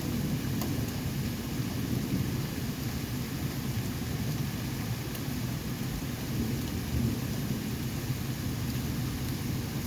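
Steady rain falling during a thunderstorm, with a constant low rumble and a few faint ticks.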